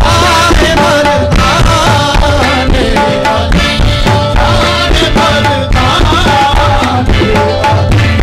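Qawwali music: harmonium and tabla playing with the party's rhythmic hand-clapping, and a wavering melodic line over steady held notes.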